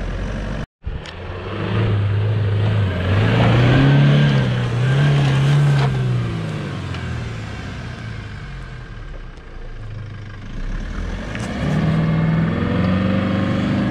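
A 4x4 SUV's engine revving hard in first gear as it tries to climb a steep dirt bank, its pitch swelling twice, easing off, then rising again near the end, with the wheels spinning in loose soil. The traction system is sending power to the wheels but the vehicle is not getting up the bank.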